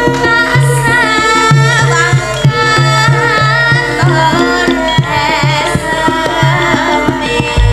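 Javanese sinden singing with heavy vibrato into a microphone, accompanied by a gamelan band with regular kendang hand-drum strokes. A deep, sustained low note comes in at the very end.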